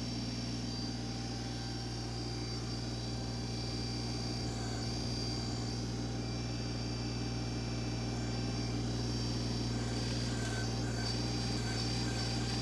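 Compact diesel tractor engine running steadily, a constant low hum with no change in speed.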